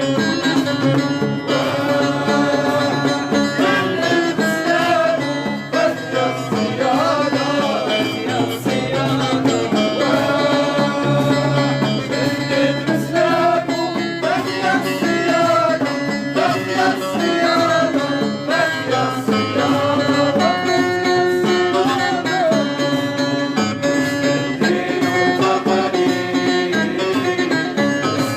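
Live music: plucked string instruments and a wavering melody line over a steady, regular beat.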